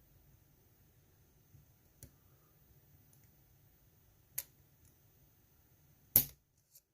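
Lock pick working the pins of a GEGE euro cylinder, with a few faint ticks. Near the end comes one loud, sharp snap with a small click just after: the pick springing off a pin, close enough to a pick breaking to be mistaken for it.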